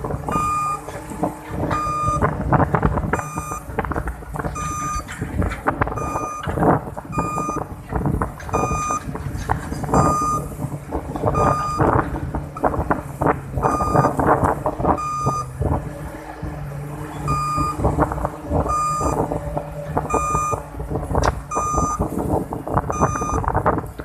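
Kobelco SK330-8 hydraulic excavator's travel alarm beeping about once every second and a half over its diesel engine running, with repeated clanking and knocking.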